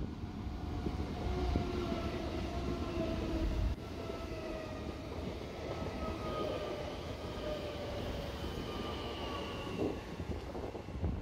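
A Great Northern electric multiple unit passing close by, a rumble of wheels on rail with a whine that slowly falls in pitch.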